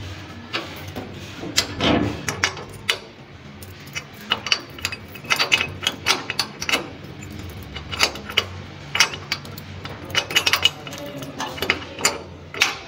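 Keys jangling and a padlock clinking against a metal grille door as it is worked by hand: a busy run of sharp, irregular metallic clicks and rattles.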